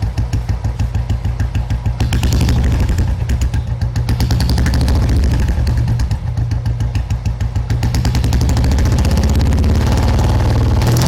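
Royal Enfield Bullet 350's single-cylinder engine running with its slow, even "dug dug" thump, about five beats a second, its idle set as low as it will go without stalling to deepen the thump. About two seconds in the throttle is opened and it runs faster and louder.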